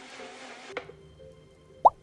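A steady hiss cuts off with a click, then one loud, short plop rising sharply in pitch, over soft background music.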